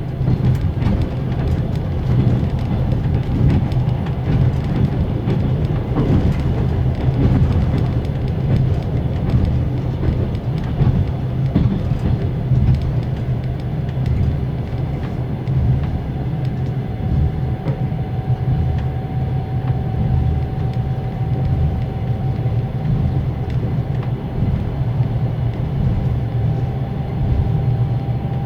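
Inside a closed compartment of a Russian passenger sleeping car picking up speed: the wheels rumble and clatter over the rail joints, and about halfway through the car's axle-driven generator adds a steady whine that holds to the end.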